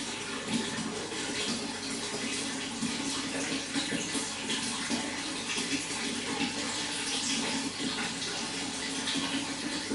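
Running water, a steady continuous rush and splash.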